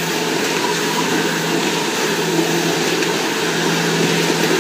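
4-foot veneer rotary peeling lathe running, a steady machine noise with a constant low hum.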